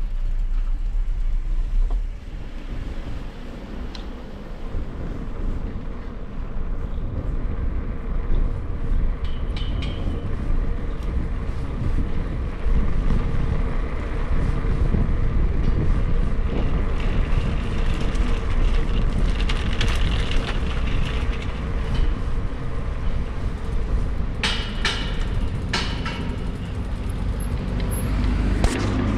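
City street traffic: motor vehicles running and passing, with a continuous low rumble, and a few short sharp clicks near the end.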